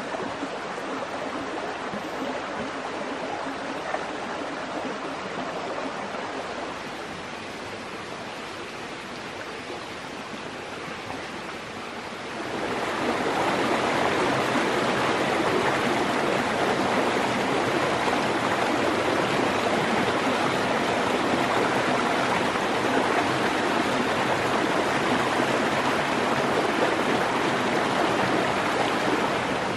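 Forest stream running: a steady wash of flowing water, which gets clearly louder partway through.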